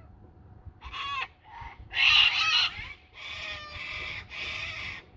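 Cockatoos screeching: a run of harsh calls, the loudest about two seconds in, followed by two more long screeches.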